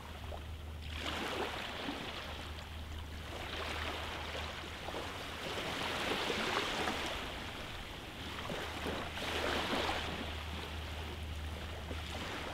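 Small sea waves washing in along the shoreline, the wash swelling and easing every few seconds over a steady low rumble.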